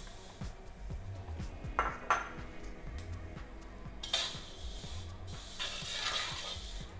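Spatula stirring and scraping dry vermicelli around a kadhai as it dry-roasts, in rustling, scraping bursts about two seconds in and again from about four seconds on.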